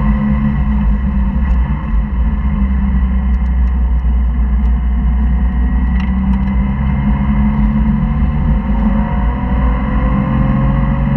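Porsche flat-six engine and road noise heard from inside the cabin on track. The engine note holds fairly steady, then rises in pitch in the last few seconds as the car accelerates.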